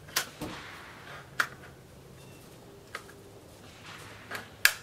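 An M1A (semi-automatic M14-pattern) rifle being handled: a handful of sharp metallic clicks and clacks, spaced out, the loudest a pair near the end.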